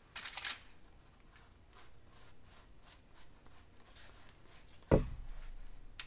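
A butter knife scraping soft butter across the cut face of a wheat bun in short, faint strokes. Near the end there is a single louder thump as the buttered bun is set down on a foil-lined baking sheet.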